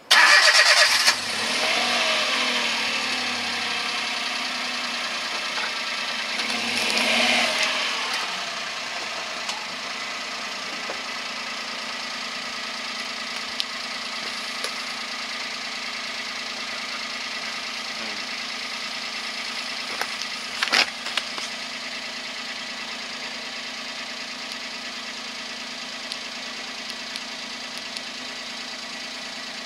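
Car engine starting with a sudden loud burst and revving, rising again about seven seconds in, then settling into a steady idle. A short sharp knock about twenty seconds in.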